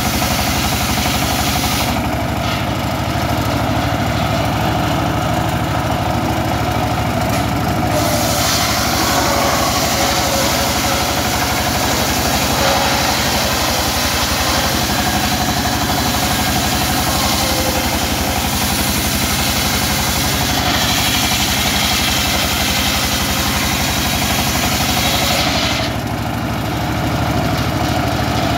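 Single-cylinder diesel engine running steadily, driving a circular saw that rips timber lengthwise. The hiss of the blade cutting wood stops about two seconds in, comes back after about eight seconds and runs until just before the end, leaving only the engine and the free-spinning saw.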